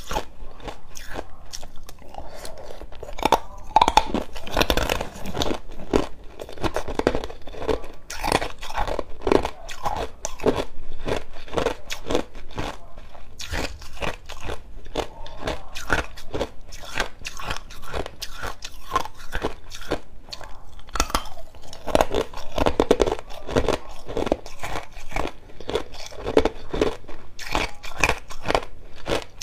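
Chunks of clear ice bitten and chewed close to the mouth, many sharp crunches in quick succession.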